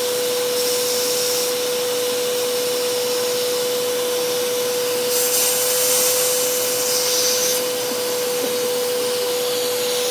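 Vacuum cleaner running steadily, a constant whine with air hissing through the crevice nozzle. The hiss gets louder for a couple of seconds about halfway through, then settles again.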